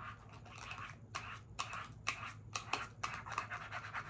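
Long acrylic nails tapping and scratching on a small plastic-wrapped package, ASMR-style. There are sharp taps about twice a second with crinkling between them.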